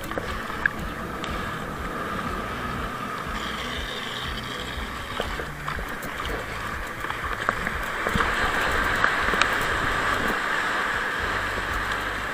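Water rushing and splashing along the hull of a six-person outrigger canoe running with river swell, with wind rumbling on the head-mounted camera's microphone. The rush grows louder from about eight seconds in as the canoe moves through whitewater, and there are a few sharp clicks.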